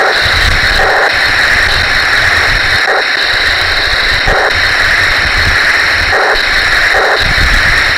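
Taigen Tiger 1 metal-version RC tank driving, heard close up from a camera on its hull: a loud, steady mechanical whine and rattle from its drive motors, gearboxes and tracks, with a low rumble that comes and goes.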